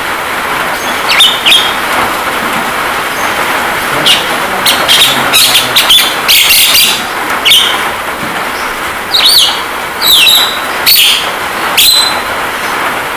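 Javan myna calls: a series of short, sharp chirps and whistles, several gliding down in pitch, coming in clusters. Under them runs a steady hiss of a rain-sound recording.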